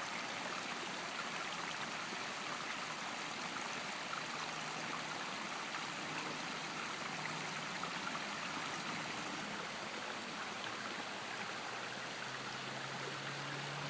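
Shallow stream running over rocks, a steady rush of water with no let-up.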